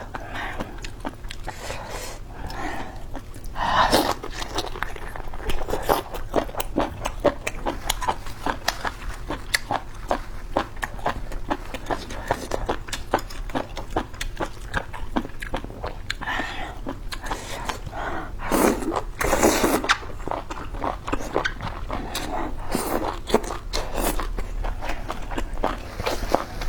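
Close-miked eating: a person chewing and biting food, with a steady run of wet smacking clicks and a few louder, fuller bursts about four seconds in and around nineteen seconds.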